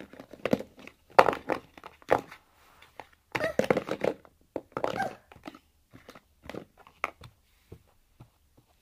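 Small makeup items being handled and fumbled with: an irregular string of clicks, knocks and rustles, busiest in the first five seconds and thinning out toward the end.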